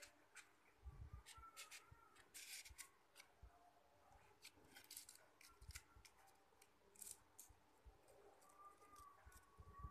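Faint rustling and crinkling of paper with scattered light clicks, as hands press cut paper flowers onto a rolled paper stem and stick them in place.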